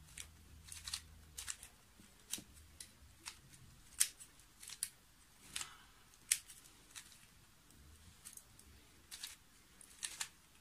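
Plastic gear teeth of a 2x2x2 gear cube clicking and clacking as its layers are turned by hand, in faint, irregular clicks a couple of times a second.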